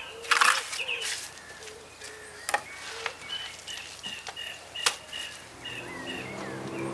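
Birds chirping, with several sharp knocks or clicks, the loudest about half a second in and two more around the middle.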